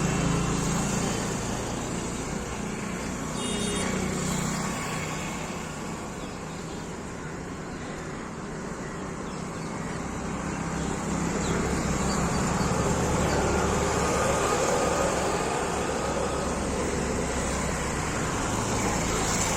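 Steady running noise of a moving vehicle with a low hum, easing a little in the middle and building again after about ten seconds.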